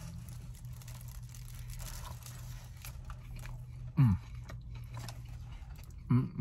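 A person chewing a mouthful of steak and cheese sub with soft, wet mouth sounds, over a steady low hum. Short hummed sounds break in about four seconds in and again near the end.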